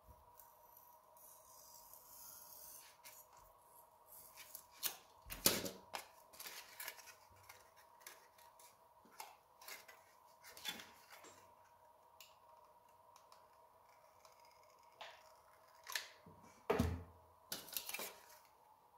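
A craft knife slices through a thin styrofoam plate, followed by scattered clicks, scrapes and rustles as the foam pieces are handled on a cutting mat. There is a sharper knock about five seconds in and another near the end, over a faint steady hum.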